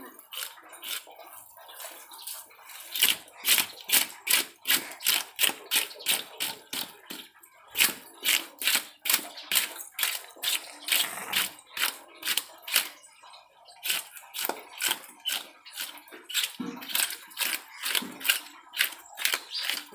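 Wooden-handled knife scraping the scales off a large fish in quick repeated strokes, about three a second, each a short dry rasp, with a brief pause about two-thirds of the way through.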